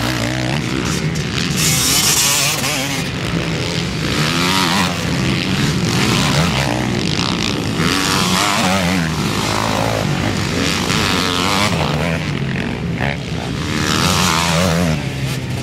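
Several motocross bikes racing through a dirt-track corner. Their engine notes overlap and rise and fall again and again as each rider comes off the throttle and accelerates out of the turn.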